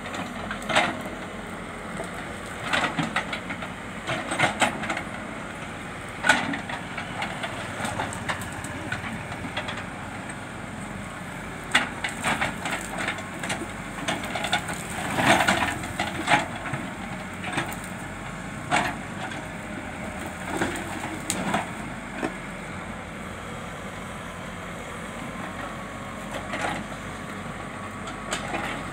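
Backhoe loader bucket crushing and snapping roadside brush and branches: irregular cracks and crunches, loudest about halfway through, over the steady noise of the diesel engines.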